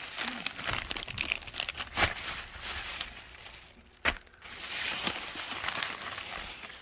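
Plastic packaging crinkling and rustling as it is handled, with two sharper clicks about two seconds apart.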